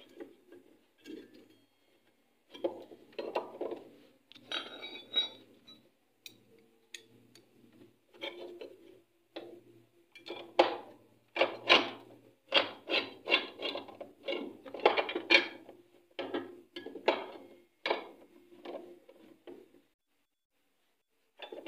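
Irregular knocks, clicks and clatter of metal and plastic parts being handled and fitted at a single-tub washing machine's gearbox pulley and cover, coming thicker and louder about halfway through.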